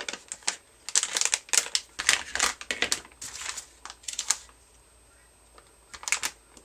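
Crinkling and crackling of a metallized anti-static bag being handled and pressed flat, in quick irregular bursts, with a quiet lull about two-thirds of the way through and another short burst near the end.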